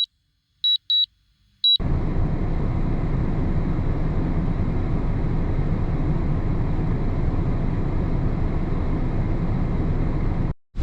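Four short high beeps from the drone's remote controller as the Mavic 2 lands. From about two seconds in, loud steady wind buffets the microphone.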